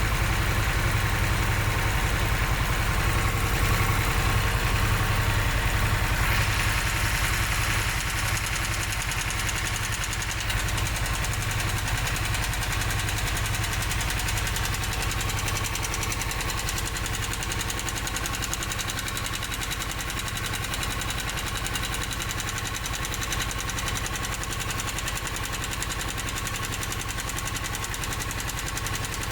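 Harley-Davidson Sportster S's Revolution Max 1250T V-twin idling steadily, with the ticking, knocking sound that the owner reports comes on after the engine has idled for a while.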